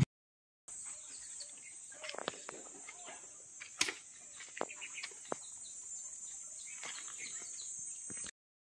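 Outdoor ambience of insects making a steady high-pitched buzz, with scattered short bird chirps and clicks over it. It cuts in about a second in and stops abruptly near the end.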